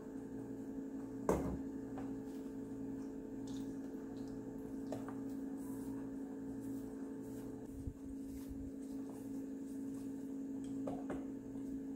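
Fish steaks being pressed and turned by hand in wheat flour in a metal bowl, giving faint soft rustling over a steady low hum. There is one sharp knock a little over a second in.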